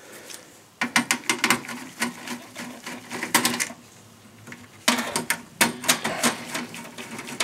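Phillips screwdriver turning out a motherboard screw from a steel desktop PC case: two runs of rapid clicking, with a short pause between them.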